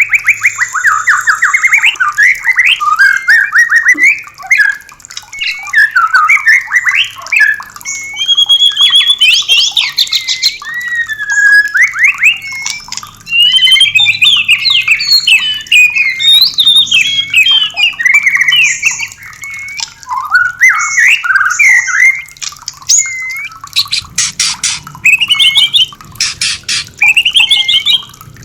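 White-rumped shama (murai batu) singing: a loud, rapid, varied run of whistles, slurred glides and trills, with bursts of dry rattling notes near the end.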